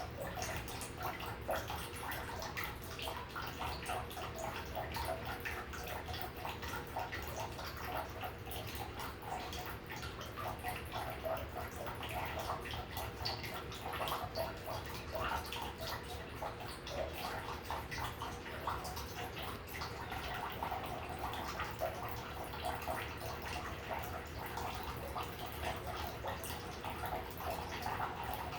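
Homemade cat water fountain running: water trickling and splashing continuously, with a steady hum underneath.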